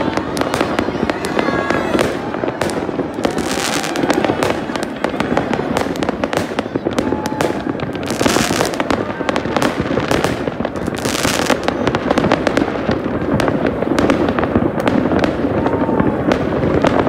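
Many fireworks going off at once across a city: a continuous dense rattle of bangs and crackles, with louder hissing, crackling bursts three times, a few seconds apart.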